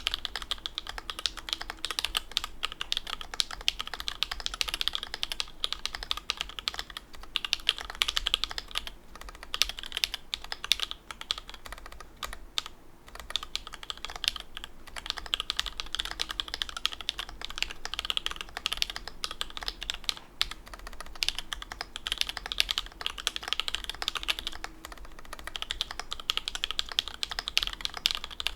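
Continuous fast typing on a custom mechanical keyboard with lubed and filmed C3 Tangerine linear switches, Cherry-profile keycaps and a carbon fibre plate. It makes a dense run of keystroke clacks with a brief pause near the middle.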